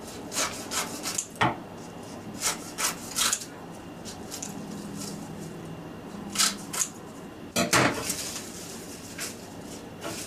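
Scissors snipping through crisp sheets of dried nori seaweed: a series of short, dry cuts and crinkles at irregular intervals, most of them bunched near the start.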